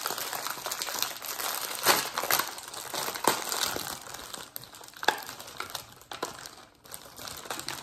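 Clear plastic packaging of a cookie pack crinkling and crackling as it is peeled open by hand, with a few sharper snaps. The crinkling is densest in the first half and thins out toward the end.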